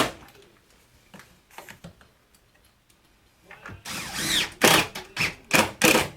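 Cordless screw gun run in several short bursts, driving screws into a replacement window frame, after a few quiet seconds.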